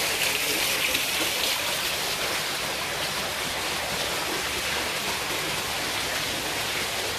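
Indoor fountain: water falling in thin streams into a shallow pool, a steady splashing.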